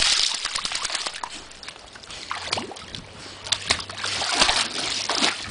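A dog splashing and thrashing in pool water as it lunges at a pool brush: a big splash right at the start, then repeated splashing and sloshing.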